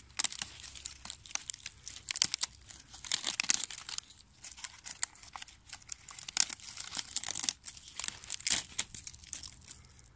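Dry, papery birch bark being torn and peeled by hand off a rotting fallen log, crackling and ripping in irregular spurts.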